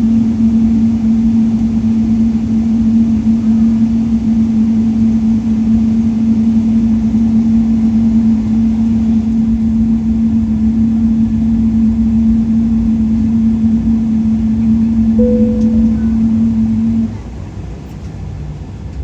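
Steady cabin noise inside a Boeing 777-300 at the end of its taxi, with a strong, steady hum that cuts off suddenly near the end, leaving the cabin clearly quieter. A brief single chime-like tone sounds about a second before the cut-off.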